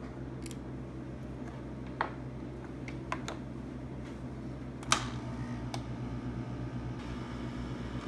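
Steady low mechanical hum like a small fan running, growing a little stronger and pulsing after about five seconds. A few sharp clicks and taps sound over it, the loudest about five seconds in.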